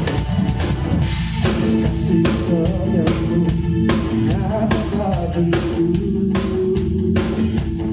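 Live band playing an upbeat worship song: a drum kit keeps a steady beat under bass and electric guitar, with a singer carrying the melody.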